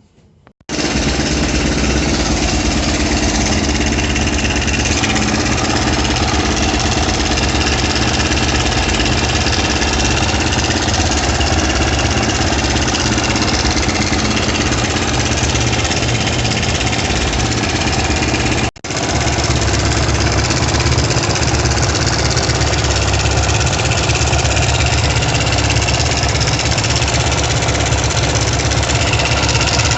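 Zongshen ZS177MM single-cylinder four-stroke motorcycle engine idling, with a knock that the owner traces to the cylinder head and suspects comes from a stretched timing chain or a jammed chain tensioner. It comes in suddenly about half a second in and drops out for an instant a little past halfway.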